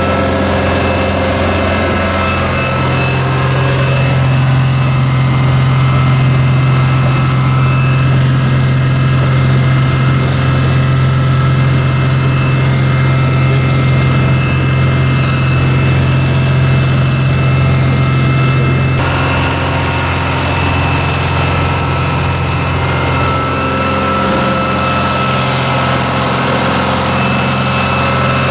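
The single Yamaha ME420STI diesel engine of a Hardy 24 fishing boat running steadily at cruising speed, about 21 knots: a loud, even drone over the rush of water along the hull. Its tone shifts a little about two-thirds of the way through.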